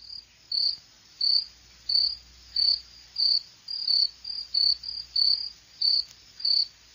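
Cricket chirping as an edited-in sound effect: a regular series of short, high chirps, about three every two seconds.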